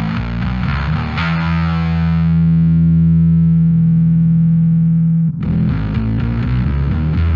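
Bass guitar played through a Fender Blender fuzz pedal: a fast distorted riff, then one held note that sustains about four seconds and cuts off suddenly before the riff starts again.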